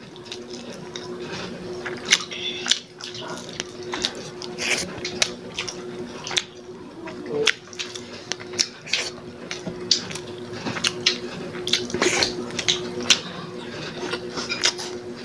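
Close-up mukbang eating sounds: wet chewing and lip-smacks from several people eating rice and fish by hand, with many short irregular clicks and smacks over a steady low hum.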